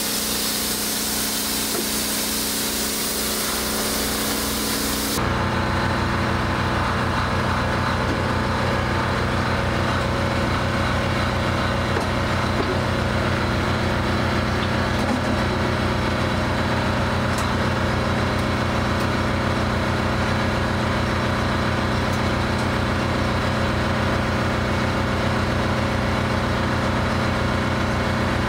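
Diesel engine-driven air compressor running steadily at constant speed. For the first five seconds a hiss sits over it; then the sound changes abruptly to a louder, closer, even engine note.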